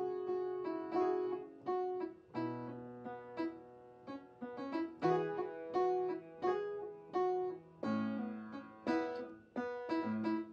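Background music: a piano playing an unhurried pattern of struck notes and chords, each note ringing and fading before the next.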